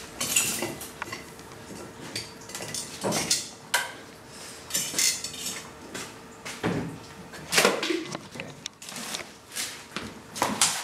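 Kitchen clatter: dishes, pans and utensils knocking and clinking at irregular moments.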